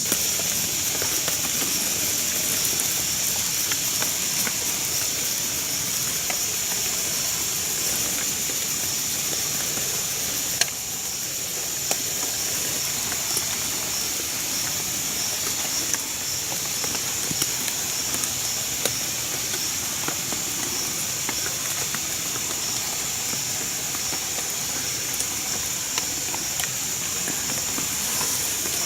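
A steady, high-pitched insect chorus drones without a break, with a few faint clicks over it.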